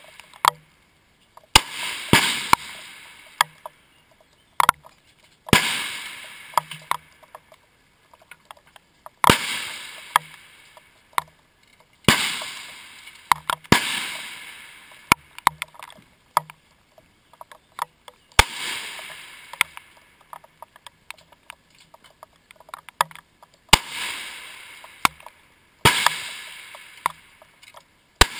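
Rifle shots on a firing line, about ten sharp cracks at irregular intervals, each trailing off over a second or so.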